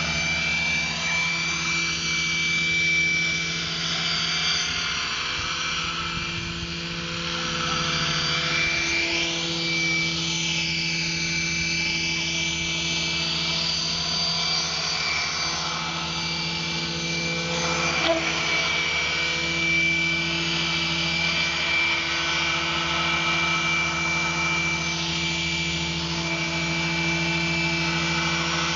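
Gaui Hurricane 425 radio-controlled helicopter in flight: a steady high whine from its motor and gears over the rotor hum, the higher tones slowly shifting in pitch as it moves about. A single sharp tick about two-thirds of the way through.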